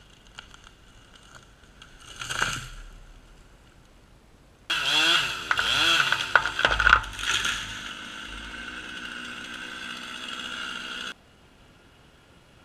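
Gas chainsaw cutting into a tree trunk at full throttle, its pitch wavering under load and then holding steady, for about six seconds. It starts and stops abruptly, with a brief softer swell a few seconds before it.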